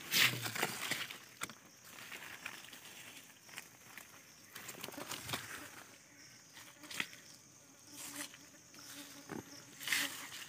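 Dry leaf litter rustling and crackling as a stick scrapes and pokes at the forest floor, in short scattered strokes. A fly buzzes close by for a few seconds in the second half, and a louder rustle comes near the end.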